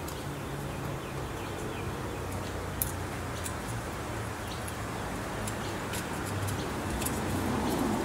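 Faint scattered clicks of small parts being handled, over a steady low hum.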